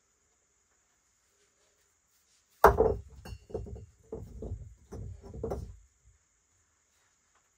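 Stones being set into a dry-stacked rock wall: one sharp knock of rock on rock about two and a half seconds in, then a run of lower scrapes and thuds for about three seconds as the stones are shifted into place.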